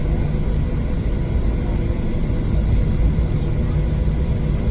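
Steady low rumble inside the cabin of a Boeing 737-700, its engines running with a few faint steady tones above the rumble.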